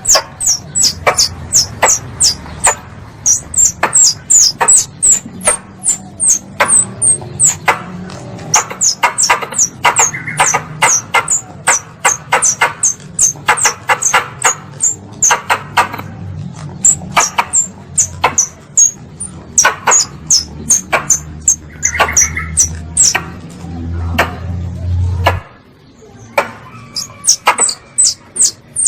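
Squirrel (tupai) calls played as a hunter's lure: rapid, sharp chips repeated about three to four times a second, each a quick high downward stroke, with brief pauses. A low hum runs beneath and cuts off about 25 seconds in.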